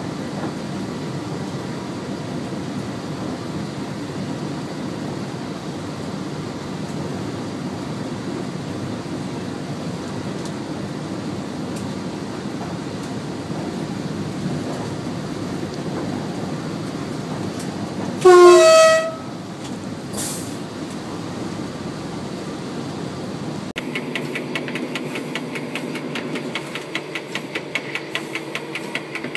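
Train cab on the move: steady low running rumble from the track. About 18 seconds in, a short two-note horn blast sounds, the second note higher. Later the sound changes to a rapid even ticking over a steady hum.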